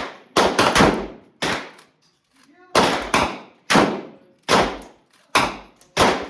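Gunshots at a shooting range: about a dozen single shots fired in quick, irregular succession, each with a short echoing tail.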